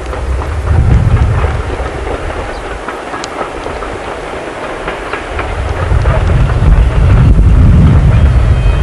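Steam locomotive working a train of coaches, heard from afar, under heavy wind buffeting on the microphone. The wind makes a loud low rumble that eases in the middle and swells again near the end.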